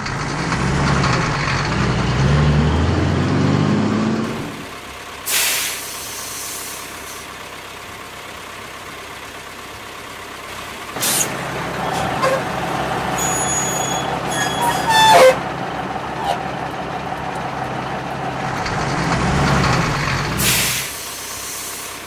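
Cartoon sound effects of a truck-mounted crane. A truck engine runs as the crane pulls up, then a short air-brake hiss comes about five seconds in. From about eleven seconds a steady mechanical whir with clicks and clanks plays while the crane hoists a container, and near the end the engine swells again before another short hiss.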